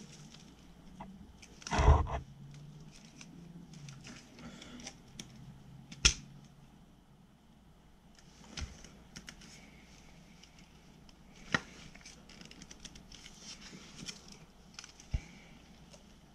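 Plastic clicks, knocks and scraping as a Dewalt DWV9000 quick-connect dust adapter is twisted and pushed against an orbital sander's dust port. The loudest knocks come about two and six seconds in. The adapter won't lock on, which the owner suspects is because the groove on the sander's port isn't deep enough.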